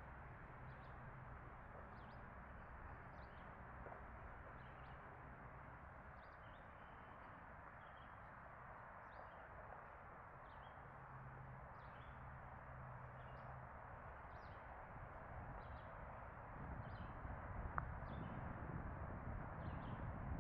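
Birds chirping, short high calls repeating about once a second, over a steady outdoor hiss and low hum. A low rumble grows louder over the last few seconds.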